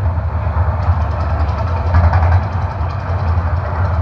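Deep, loud, steady rumble of the Mirage Volcano show's eruption sound effects over its loudspeakers, with a hiss above it as the fire and water jets go up.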